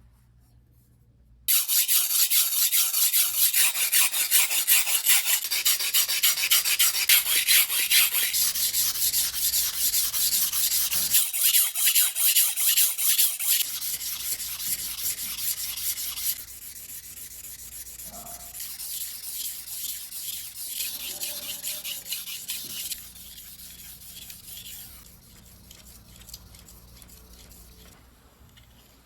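Gyuto chef's knife blade scraping back and forth on a whetstone in rapid, repeated strokes, grinding back a chipped tip. The strokes start sharply after a short silence, become quieter about halfway through and quieter again later, then fade out near the end.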